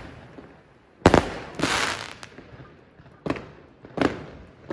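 Closing shots of a 240-shot compound fireworks box: a loud bang about a second in, followed by a short stretch of crackling, then a few softer bangs.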